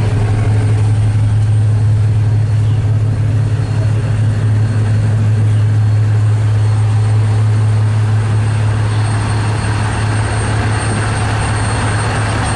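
Large passenger ferry's engines idling at the dock: a steady low drone with no change in pitch.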